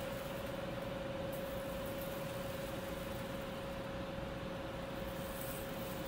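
Steady machinery hum and air noise with one constant mid-pitched tone.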